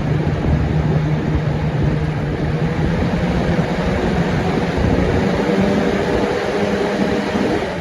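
Galaxy 4733 box fan with a swapped-in Weather Shield motor running: a loud, steady rush of air over a low motor hum. It is loud because, by the owner's account, the blade is too light for the motor.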